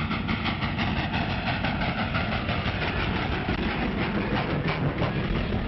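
A vehicle in motion with a steady, rhythmic clatter of several beats a second, on a muffled old film soundtrack.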